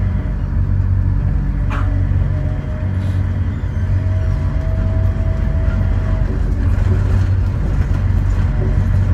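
Sengkang LRT train, a rubber-tyred Mitsubishi Crystal Mover, running, heard from inside the car: a steady low rumble with a faint whine holding one pitch. A brief sharp squeak comes a little under two seconds in.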